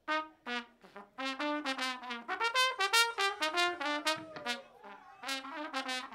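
Trumpet and trombone playing phrases of short, separate notes on their own, with no bass or drums under them. The notes come in bursts with short gaps, the busiest run in the middle.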